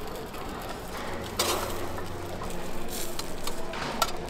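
Batter sizzling as it fries on a hot flat griddle plate, with a few sharp clicks about a second and a half in and again near the end.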